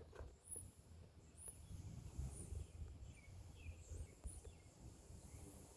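Faint outdoor quiet with several short, high bird chirps spaced through it over a low, even rumble.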